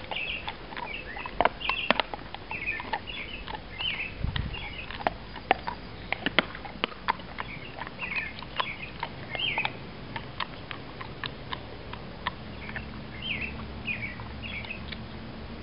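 Dogs chewing at the ground, a run of sharp irregular clicks and crunches, with birds chirping in short twittering phrases over it.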